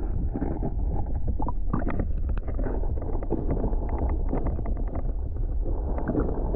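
Muffled underwater sound of a stream through a submerged camera: a steady low rumble of flowing water with many small clicks and ticks.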